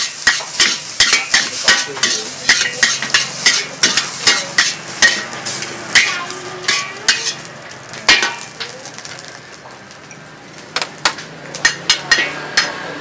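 Metal utensils clattering against a pan in quick, uneven strikes while food fries with a hiss. The strikes ease off about two-thirds of the way through and pick up again near the end.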